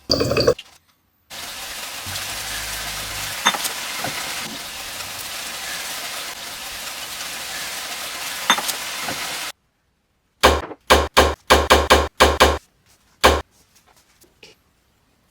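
Food sizzling steadily in a hot pan for kimchi fried rice, with an occasional light clink. Then a quick run of about nine knocks of a knife chopping on a cutting board.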